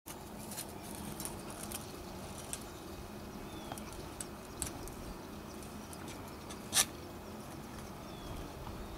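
Faint rustles and small ticks of leaves and flowers brushing close against the camera as it is pushed through a shrub, over steady outdoor background noise, with one sharper click about seven seconds in. Two faint short falling whistles, one a few seconds in and one near the end.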